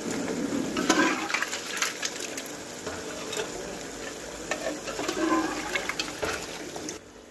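Boiled country chicken pieces being ladled into a thick, wet masala gravy in an aluminium pot and stirred in: squelching and sloshing, louder about a second in and again about five seconds in.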